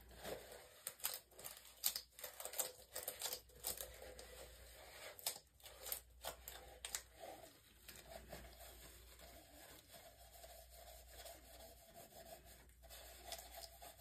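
Short scratchy rustling and scraping sounds, roughly one or two a second, through the first half. After that they thin out and a faint steady hum remains.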